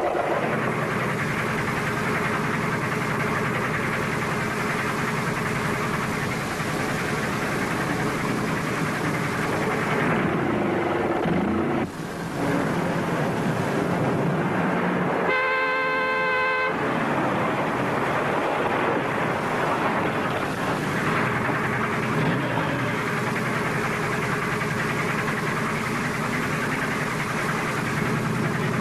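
Car traffic: engines running and cars driving past, with one long car-horn honk of about a second and a half roughly halfway through.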